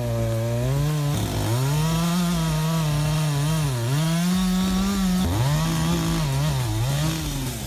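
Two-stroke chainsaw running at high revs while cutting a tree. Its note dips several times as the chain bogs down in the wood, then climbs back.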